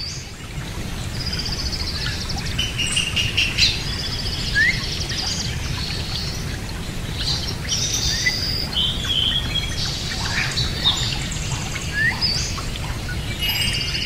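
Birds chirping and twittering throughout: many short calls and quick trills, with a few brief rising chirps, over a steady low rumble.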